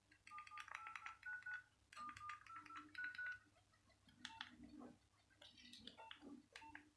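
Nokia 1202 keypad keys pressed in quick runs, each press giving a faint click and a short key beep; within each run the beeps step up in pitch. From about four seconds in the presses come more slowly and the beeps are lower.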